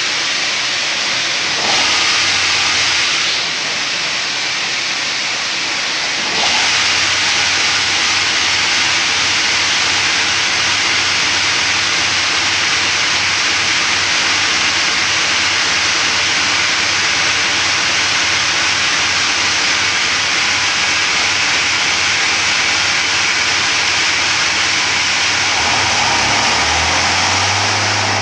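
KiHa 54 diesel railcar at engine start: a loud, steady hiss with a faint low engine hum underneath. About 26 seconds in, a deep diesel hum comes in strongly and settles into idle as the hiss eases.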